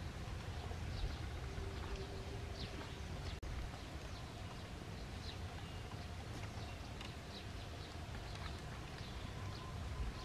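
Outdoor ambience: a steady low rumble with faint, scattered high chirps of small birds, and a single click about three and a half seconds in.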